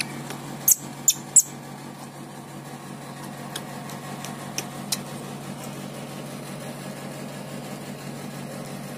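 Baby macaque giving three short, sharp, high-pitched squeaks in quick succession about a second in, then a few fainter ones around four to five seconds, over a steady low hum.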